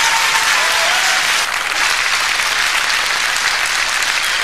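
A large concert audience applauding, a dense, steady sound of many hands clapping.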